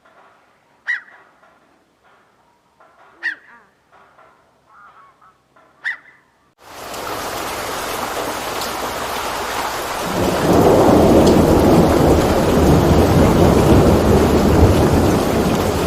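A bird gives three loud, sharp, honking calls about two and a half seconds apart. About six and a half seconds in, a loud, steady rushing noise begins abruptly, and it grows louder with a deep rumble about ten seconds in.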